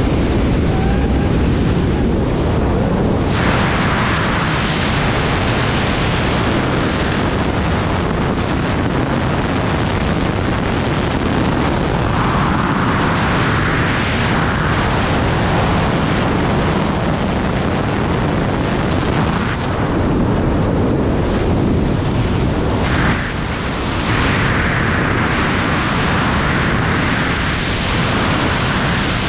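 Freefall wind rushing over a skydiver's camera microphone: a loud, steady rush of air that swells and eases several times.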